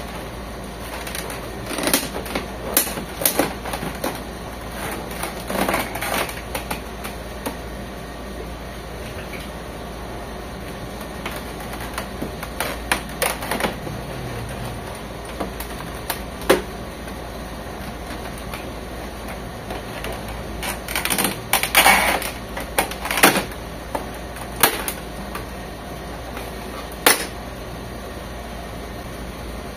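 Irregular clusters of plastic clicks and knocks from an HP Officejet 7612 printer's side cover being pried and pulled at. The cover is still held by one screw that has not been removed.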